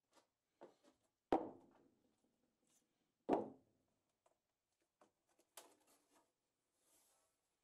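Two solid knocks about two seconds apart as bricks are set down on the workbench, followed by light handling clicks and the rustle of painter's tape being pressed on.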